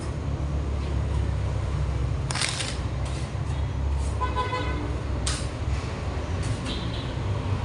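A filler knife scrapes body filler in two short strokes, about two and a half and five seconds in, over a steady low rumble, with a brief pitched tone near the middle.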